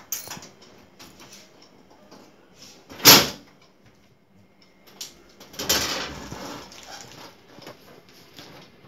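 Key turning in the lock of a steel almirah, with small clicks and one loud metallic clack about three seconds in; about two seconds later the metal door is pulled open, a longer, noisier rattle.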